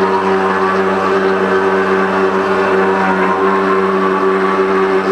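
CNC stone router's spindle motor running steadily, its cutting bit grinding a pattern into a wet andesite slab under a stream of water coolant. The sound is a constant hum under a grinding hiss.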